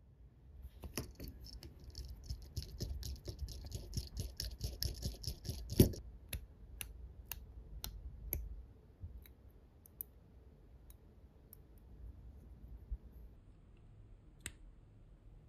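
Small hand tools working on a 1/12-scale plastic model's wire-spoked wheel: a quick run of fine clicks and ticks, one sharp loud click a little before the middle, then single crisp snips about half a second apart as nippers cut the thin spoke wire, thinning out to occasional ticks.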